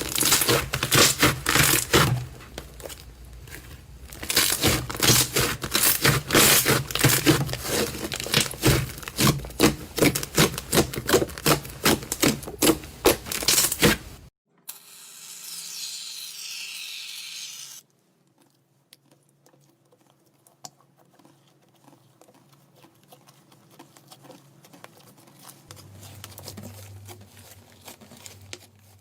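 Slime being squeezed and pressed by hand, giving a dense run of crackling and popping for about the first half. Then a short hiss of about three seconds, after which only faint, scattered clicks and a low hum remain.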